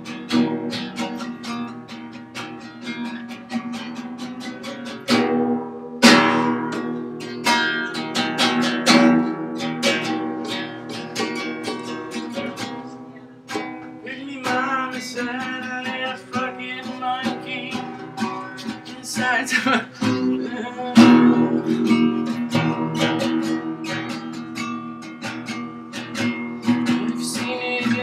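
A song on strummed acoustic guitar, a steady rhythm of strokes with sustained chords.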